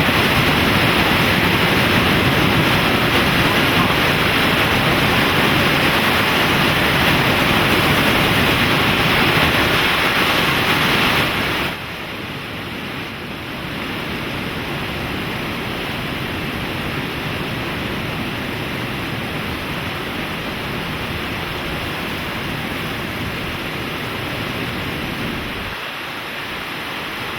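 Steady rushing of water, an even noise without rhythm or distinct events. It drops abruptly to a somewhat lower level about twelve seconds in, then continues steadily.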